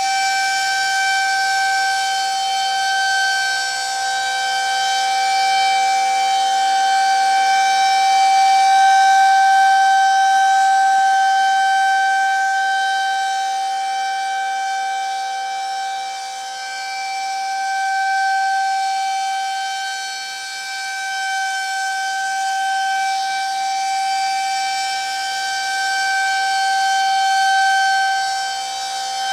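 Federal Signal 2001-130 rotating tornado siren sounding its steady alert tone: one unchanging pitch whose loudness swells and fades slowly as the siren head turns.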